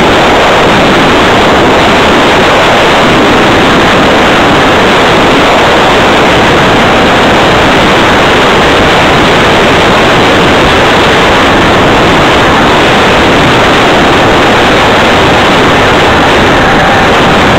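Loud, steady rushing noise of wind buffeting the microphone of a moving camera, over road and traffic noise.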